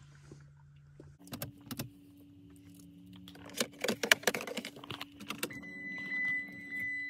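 A bunch of car keys jangling and clicking as they are handled in the car's cabin, loudest about four seconds in. A steady high electronic tone comes on about five and a half seconds in, as the dashboard lights up.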